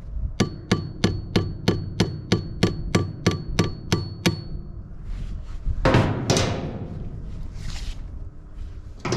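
Claw hammer tapping an aluminium boat hatch about a dozen times in quick, even succession, each blow with a short metallic ring. A couple of seconds later comes a louder scrape and clatter.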